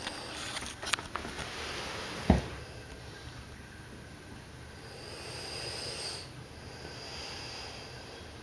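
A sleeping Dogue de Bordeaux snoring with slow, rasping breaths. There is a loud snort about two seconds in, then quieter snoring breaths. A few sharp clicks come right at the start.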